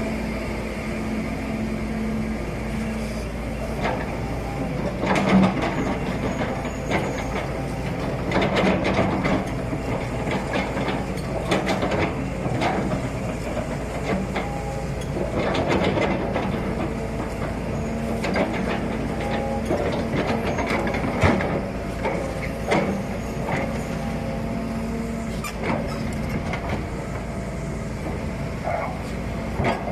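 Volvo hydraulic excavator's diesel engine running steadily, with irregular metallic clanks and rattles from the machine as it works.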